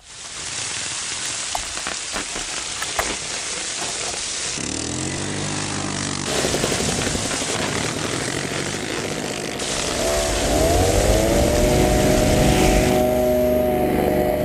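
Rushing noise with a few clicks, then a paramotor's engine and propeller come in about four and a half seconds in, rising in pitch and settling to a steady run. About ten seconds in it runs up again to a higher, steady pitch.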